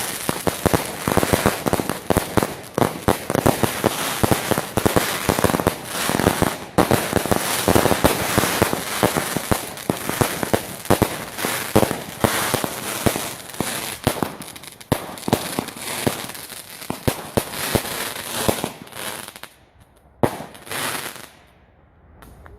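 Fireworks going off: a dense, rapid run of bangs and crackling that dies away near the end after a couple of last bangs.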